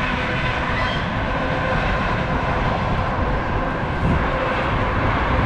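Strong wind blowing across the microphone during a rain-and-snow squall: a steady rushing noise with a restless low rumble.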